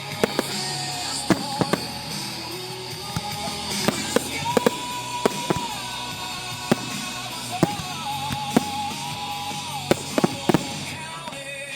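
Fireworks shells bursting in an irregular string of sharp bangs over a music soundtrack with long held notes.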